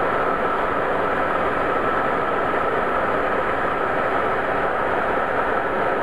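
BARBAR Eco 8000 hair dryer running on high speed and high heat: a steady rush of air with a constant whine from the fan motor.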